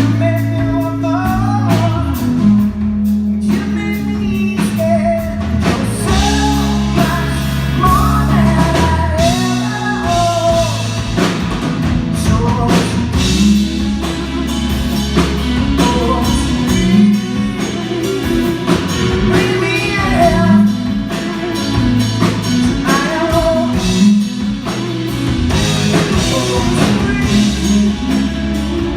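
Rock band playing live through a hall PA: a male lead vocal singing a melody over electric guitar, bass and a drum kit at a steady mid tempo.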